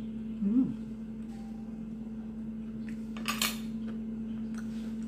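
A short hummed 'mm' while tasting food, then about three seconds in a brief scrape of cutlery against a plate. A steady low hum runs underneath.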